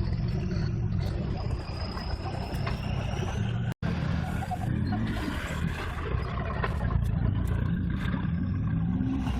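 Off-road vehicle engine running with a heavy low rumble, with a brief dropout about four seconds in.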